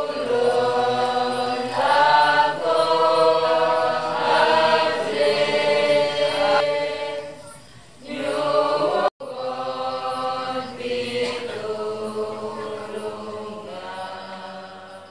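Voices singing a slow hymn together, with long held notes. The singing dips about seven seconds in and breaks off for an instant just after nine seconds before going on.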